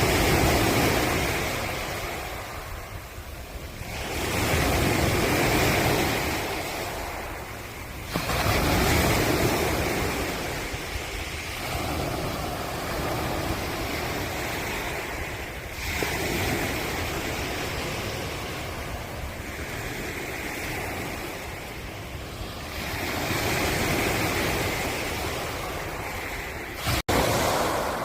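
Ocean waves breaking and washing up on the shore, the surf swelling and fading in surges every four seconds or so. The sound cuts out for an instant about a second before the end.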